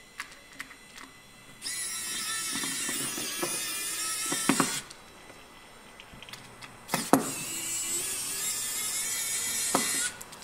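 Running Maxtor D740X-6L IDE hard drive with its cover being opened, giving a loud, high-pitched, wavering whine-screech in two bursts of about three seconds each, with a quiet pause between them. A few light metallic clicks of a screwdriver on the drive come just before the first burst.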